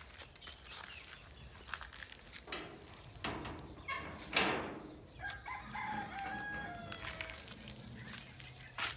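A rooster crows once, one long call falling in pitch, a little after five seconds in. Just before it, about four seconds in, there is a loud scraping noise.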